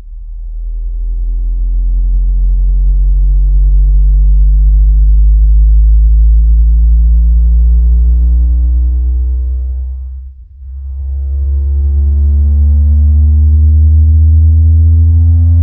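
Sine test tone from a frequency sweep generator, gliding slowly upward in pitch from about 40 Hz to about 80 Hz, with faint higher overtones. Its loudness dips briefly about ten seconds in, then comes back.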